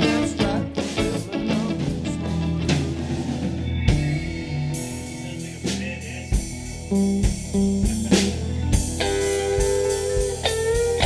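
Blues band playing an instrumental break: a lead electric guitar with bent, wavering notes over bass and a drum kit's steady beat.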